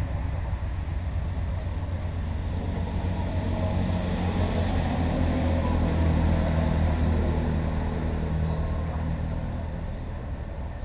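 Steady low mechanical hum of the vacuum aspiration pump running during ovum pick-up, drawing follicular fluid through the needle and tubing. It swells a little in the middle and eases near the end.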